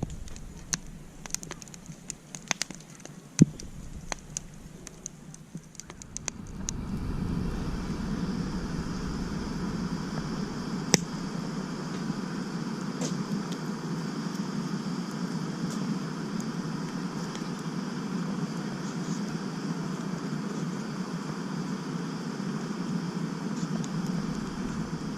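Wood fire crackling with scattered sharp pops. About six seconds in, a steady, even rushing noise starts and holds, louder than the crackle.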